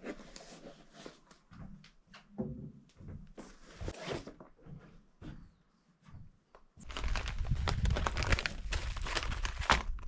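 Rustling and knocking of a backpack and camping cookware being unpacked by hand. About seven seconds in, a much louder rushing noise starts and keeps going, heavy in the low end.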